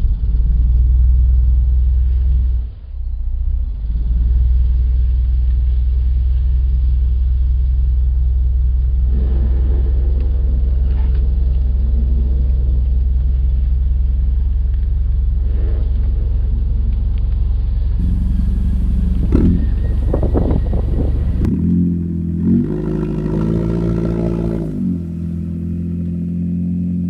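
The 1990 Mitsubishi TP Magna's 2.6-litre four-cylinder engine held at high revs in a burnout, its driven wheels spinning on dry grass and dirt. It runs loud and steady, dipping briefly a few seconds in, and the heavy rumble drops away about three-quarters of the way through.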